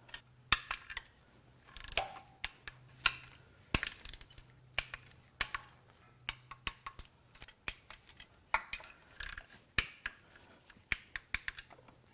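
Hand ratchet clicking in short, irregular strokes as the S54 engine's oil pan bolts are run down and torqued to 89 inch-pounds.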